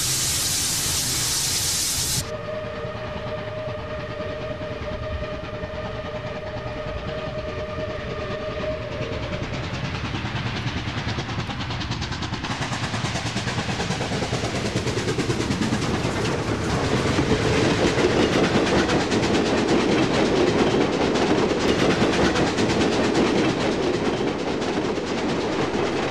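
Model steam locomotive's sound system: a burst of steam hiss for about two seconds, then a long steady whistle blast, then the running train's clatter on the track growing louder as it approaches.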